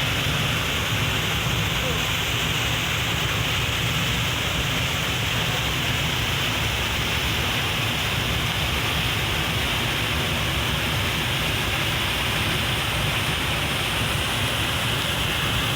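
Steady rush of a waterfall, falling water making an even, unbroken noise.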